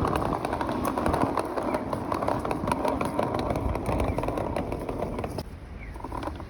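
Outdoor city street ambience with steady traffic noise and scattered small clicks, dropping abruptly to a quieter background about five and a half seconds in.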